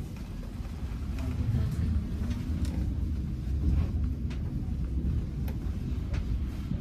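Tram running along its track, heard from inside the passenger cabin: a steady low rumble from the wheels and running gear, with a few faint, sharp ticks.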